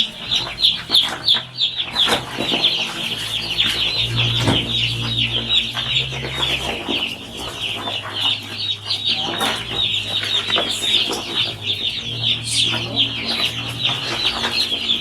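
A crowd of about a hundred young chicks peeping nonstop, many short, high, falling chirps overlapping into one shrill chorus.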